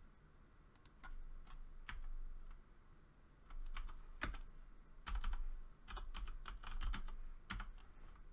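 Computer keyboard being typed on: irregular, quick keystroke clicks in short clusters with brief pauses between them.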